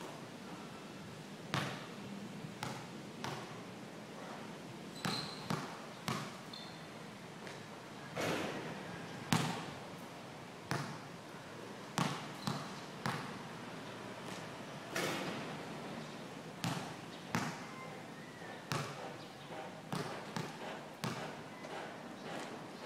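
Basketball bouncing on a concrete court as it is dribbled: short, sharp bangs at uneven spacing, sometimes two or three close together, the loudest about nine seconds in.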